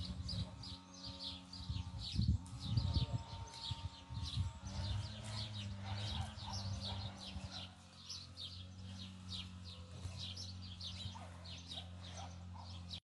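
Birds chirping over and over, several short, high, falling chirps a second, over a steady low hum. A few louder rustles and thumps come about two to three seconds in.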